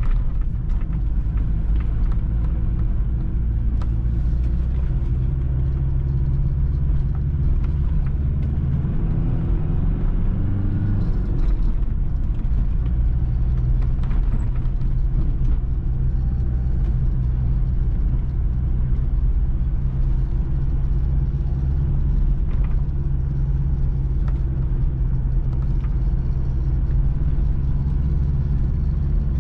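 Car engine and tyre noise heard from inside the cabin while driving on a country road, a steady low hum. About ten seconds in, the engine note shifts and rises briefly before settling back to an even cruise.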